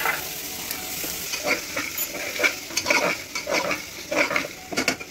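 A steel ladle stirring soaked dried peas into frying onion-tomato masala in a metal pressure cooker pot, with repeated scrapes and knocks against the pot over a steady sizzle.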